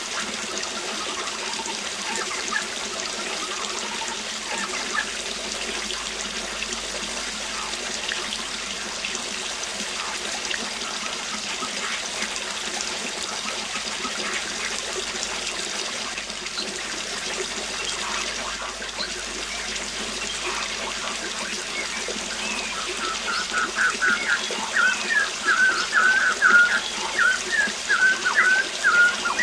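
Waterfall rushing steadily, with scattered bird chirps over it. In the last few seconds a bird calls loudly in a rapid run of short notes.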